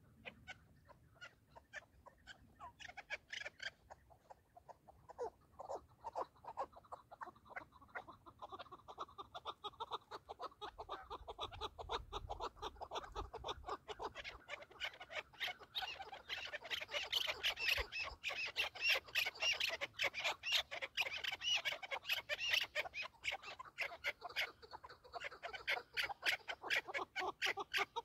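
Chukar partridges calling: fast runs of short clucking notes, several a second. The calling gets louder about halfway through.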